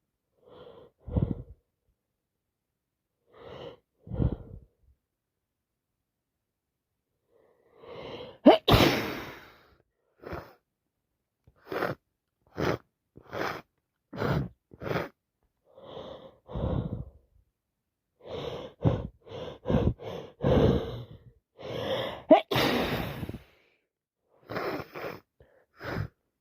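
A woman sneezing over and over in a fit of wet sneezes, with sharp gasping in-breaths between them. The loudest come about a third of the way in and again near the end, with a quick run of short ones in the middle. It is the sneezing she puts down to allergies plus a cold.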